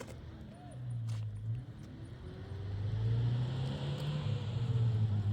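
A car engine running on the road. Its low hum changes pitch a few times and grows louder, swelling to its loudest about four seconds in.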